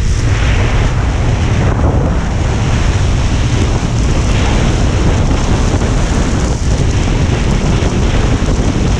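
Wind rushing over a helmet-mounted microphone on a motorcycle at highway speed: a loud, steady buffeting with no distinct engine note.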